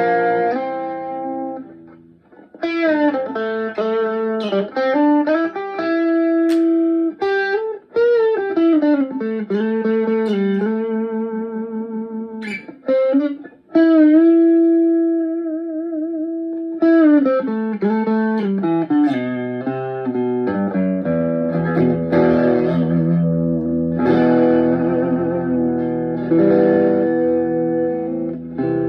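Chapman ML1 Traditional Strat-style electric guitar played through a Blackstar HT1-R valve combo amp. Single-note lead lines with string bends and vibrato give way to sustained strummed chords a little past halfway.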